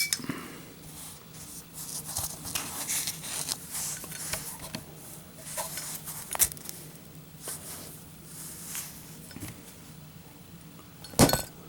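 Faint clicks and rustles of a Zippo lighter being handled. Near the end comes one sharp impact: the lit Zippo dropped onto a hard surface in a drop test.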